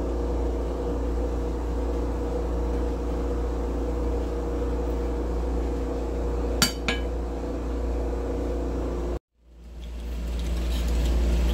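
A steady appliance hum in a kitchen, with a metal spatula clinking once against the pan or plate about six and a half seconds in as rice is served. The sound cuts out suddenly about nine seconds in and fades back up.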